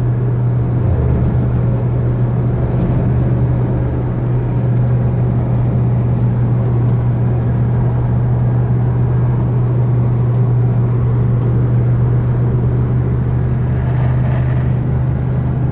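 Chevrolet S10 pickup heard from inside the cab at highway speed: a steady low drone over road noise. This is the abnormal 'ronco' that the owner says is not normal and that rises with speed and in right-hand curves.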